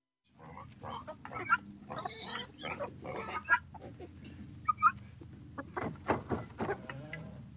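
Chickens clucking, a scatter of short irregular calls starting about half a second in, over a low steady hum.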